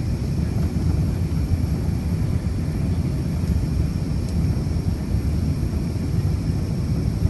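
Steady low rumble inside the cabin of an Airbus A380 airliner: engine and airflow noise, with no distinct thumps or changes.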